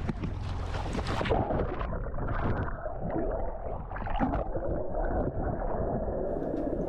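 Wind and water splashing at the surface. From about a second and a half in, bubbles and gurgling are heard muffled from under the water as a swimmer goes down beside the hull.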